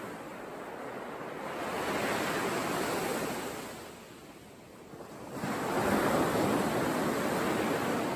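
Sea waves washing ashore: a rushing noise that swells, fades to a lull about four seconds in, then swells louder again.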